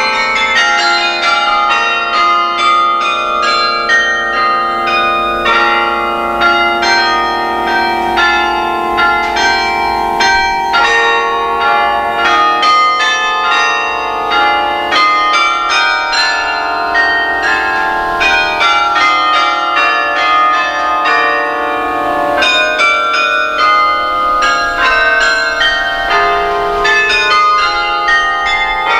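Carillon bells played from the baton keyboard: a carol melody in quick struck notes over lower bell notes, each note ringing on and overlapping the next.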